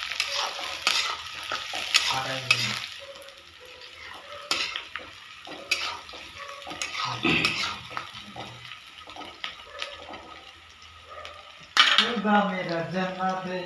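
A metal spatula stirs and scrapes round a black kadai in repeated clanks and scrapes, while onions and green chillies sizzle in hot oil over a gas flame. There is one sharp clank near the end.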